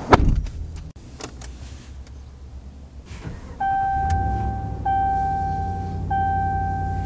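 A power window stops with a thump, followed by a few light clicks. About three and a half seconds in, the 2024 Ram 1500's cabin warning chime starts with the ignition on: a single bell-like tone repeating about every second and a quarter over a steady low hum.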